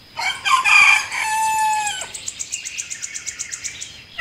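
A rooster crowing once, the call rising and then ending in a long held note. A fast run of faint high chirps follows, about eight a second.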